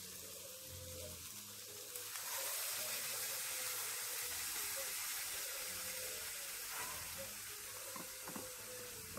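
Fish sizzling in hot curry oil in a pot: a steady hiss that grows louder about two seconds in.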